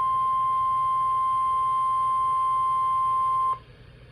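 NOAA Weather Radio warning alarm tone: a single steady high-pitched tone of about 1050 Hz. It cuts off sharply about three and a half seconds in, leaving a low background hum. The tone is the alert signal that comes before a new severe thunderstorm warning is read out.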